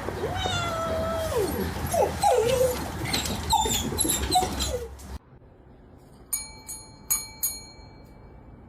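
A puppy whining and yelping in rising and falling cries for about five seconds. After a cut, four short chime-like ringing notes sound in quick succession.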